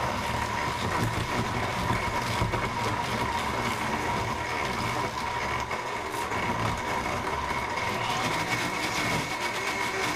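Blendtec Designer 725 blender running its Frozen Treat program in the Twister jar, with a steady motor whine as it churns frozen bananas and almond-milk ice cubes into soft-serve ice cream. Its tone changes about eight seconds in as the program shifts speed.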